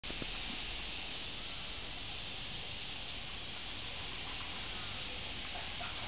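A chorus of cicadas in the trees: a dense, steady, high-pitched buzz that holds without a break.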